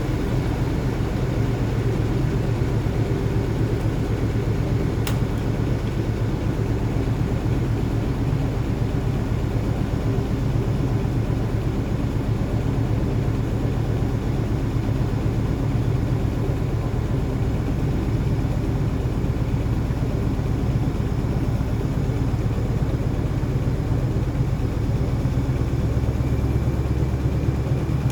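Gorenje WaveActive washing machine in an interim spin, its motor and drum running at a steady speed with a steady low hum. One faint click comes about five seconds in.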